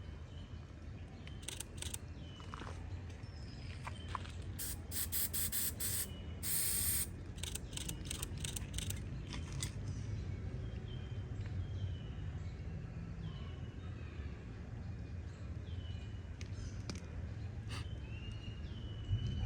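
Outdoor nature ambience: birds give short chirps every few seconds over a steady low wind rumble. A run of sharp clicks and a brief hiss come between about five and seven seconds in.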